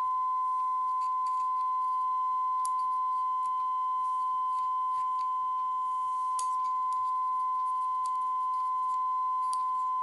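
Steady 1 kHz sine-wave test tone from a small mini amplifier, fed through a 1-henry Mitsumi inductor; a small magnet held against the inductor leaves the tone unchanged in level. A few faint clicks sound over it.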